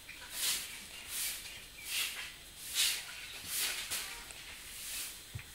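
Young calf breathing and sniffing close to the microphone: a regular run of short, airy breaths, about seven of them, a little faster than one a second.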